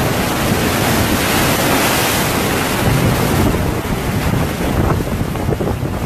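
Typhoon-driven sea waves crashing over a seawall and water surging across a concrete floor, with strong wind buffeting the microphone. The surge is loudest about two seconds in.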